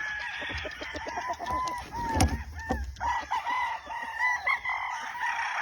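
Several gamefowl roosters crowing, their long calls overlapping, with scattered short clicks and a sharp knock about two seconds in.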